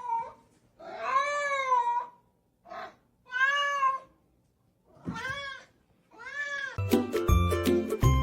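Domestic cat meowing over and over: about six drawn-out calls, each rising and then falling in pitch, one of them short. Upbeat music starts near the end.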